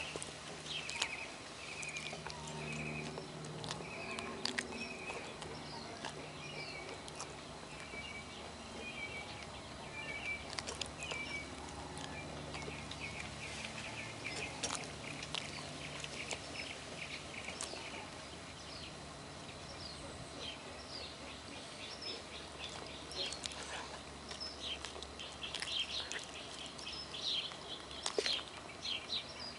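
A small dog chewing and licking string cheese close to the microphone, short clicks and smacks scattered through. Birds chirp behind it: a run of short chirps about two a second for the first dozen seconds, and busier chirping near the end, over a low steady hum.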